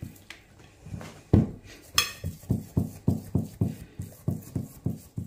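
A hand pressing and patting semolina maamoul dough flat into a glass pie dish: a run of short, dull thumps, about four a second, with one sharper click about two seconds in.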